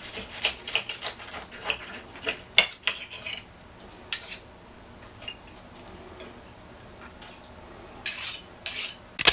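Knife and fork clicking and scraping against a plate while cutting through a crunchwrap, with many quick clicks at first, fewer in the middle, and a few louder scraping strokes near the end.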